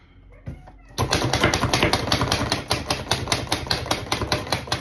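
Hand-pressed plunger food chopper being pumped rapidly over garlic cloves: a fast, even run of clattering clicks, about eight a second, starting about a second in.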